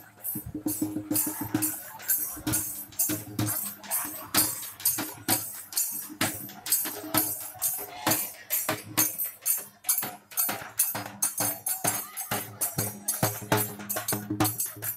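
Procession percussion: a large bass drum and other percussion playing a quick, steady beat, with a low held tone underneath.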